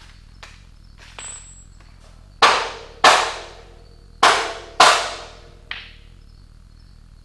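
Hammer blows on metal: four hard strikes in two pairs, each ringing briefly, with a few lighter taps around them, knocking loose a stubborn part.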